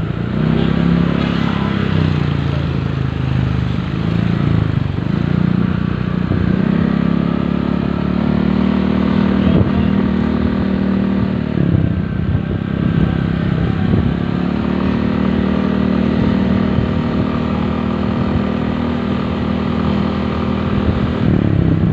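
Motorcycle engine running while riding. The engine note dips and climbs again a few times and holds steady in between.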